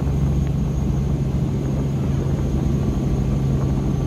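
Helicopter in flight, heard from aboard: a steady drone of engine and rotor with a strong low hum.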